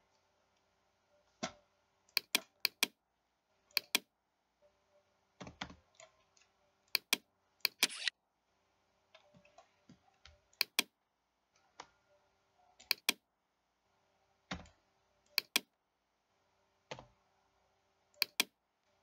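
Computer mouse and keyboard clicks during CAD work, irregularly spaced and often in quick pairs, with a faint steady hum underneath.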